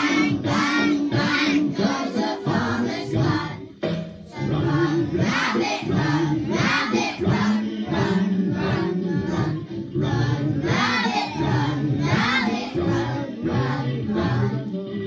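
A class of young children singing a Second World War song together in chorus, with a brief pause for breath about four seconds in.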